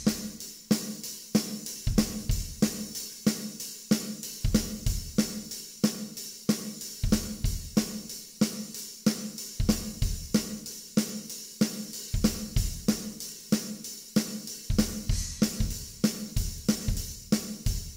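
Acoustic drum kit played in a steady beat: bass drum and snare hits under continuous hi-hat and cymbal strokes.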